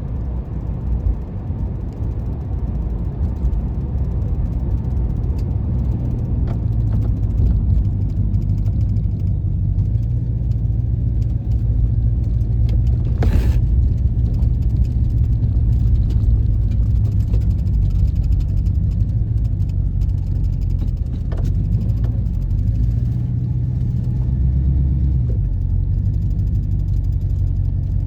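1996 Chevrolet Impala SS's 5.7-litre LT1 V8 running steadily while the car drives, a deep continuous drone with its exhaust note, which the owner suspects has a leak. A single sharp click about halfway through.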